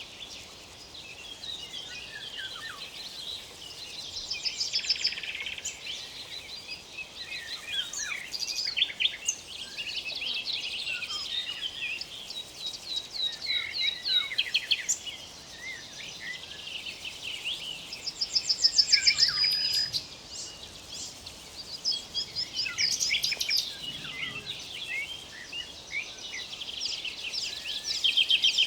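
A chorus of several songbirds singing and calling over one another, with chirps, quick sweeping notes and rapid trills. The loudest stretch is a fast run of repeated notes about two-thirds of the way through.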